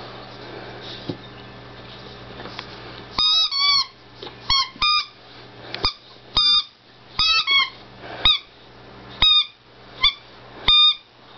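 Squeaky toy pig being chewed by a puppy: a dozen or so short, high squeaks, singly and in quick pairs, starting about three seconds in, over a low steady hum.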